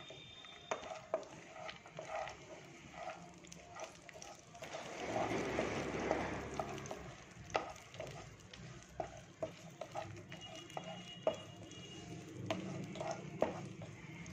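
Mixed dry fruits frying in hot ghee in a kadhai while a spoon stirs them, scraping and clicking against the pan. The sizzling and stirring grow louder for a couple of seconds about five seconds in.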